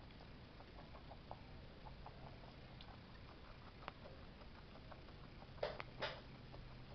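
Guinea pig eating grapes in a glass bowl: faint small clicks and chewing ticks, with two louder brief scuffs about six seconds in. A steady low hum runs underneath.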